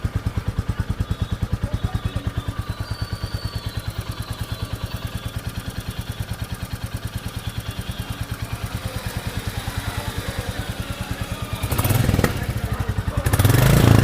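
Royal Enfield Bullet 350's single-cylinder four-stroke engine on its stock exhaust idling with an even, rapid thumping beat (the "dug dug" Bullet sound). Near the end it gets louder and rougher as the engine is opened up.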